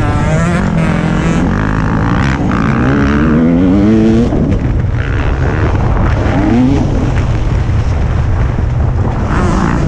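TM 300 two-stroke motocross bike engine, heard from on board while riding. The revs climb for about two seconds, drop off sharply just past four seconds in, and climb again briefly a couple of seconds later, over a heavy low rush of wind noise.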